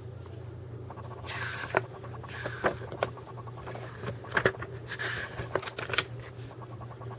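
Paper instruction manual being handled and its pages flipped: several short rustling swishes with a few light taps, over a steady low hum.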